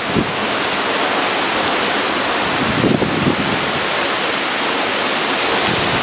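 Heavy rain pouring down in a squall-line thunderstorm, a steady loud hiss, with strong wind gusting and buffeting the microphone about three seconds in.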